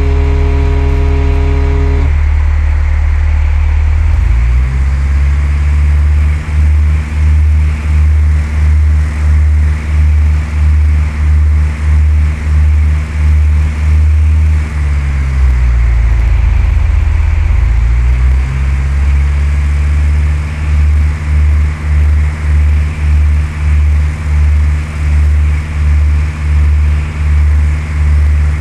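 Cessna 172's piston engine and propeller droning in the cabin, with an even pulsing about one and a half times a second. About fifteen seconds in, the engine note drops, and it comes back up a few seconds later as power is changed.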